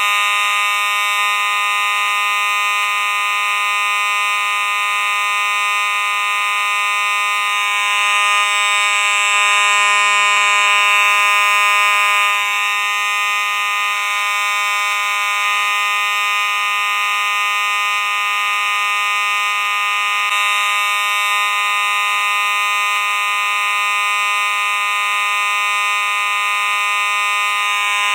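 Simplex fire alarm sounding continuously: a loud, steady electronic tone with no breaks.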